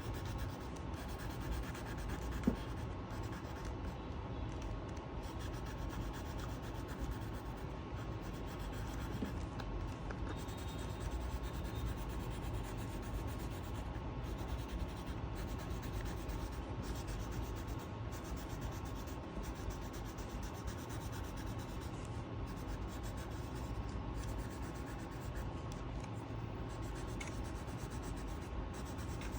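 Steady rubbing of a colouring utensil back and forth on paper as an area is filled in with colour. A brief sharper tap comes about two and a half seconds in.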